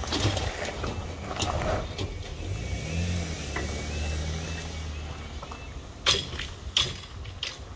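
Railway level crossing closing as its barrier arm lowers: a faint repeating warning alarm over a low hum in the middle, then two sharp knocks about six and seven seconds in.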